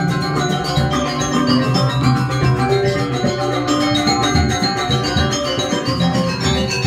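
Balinese gamelan music: metallophones ringing in a dense, unbroken stream of struck notes over a steady low tone.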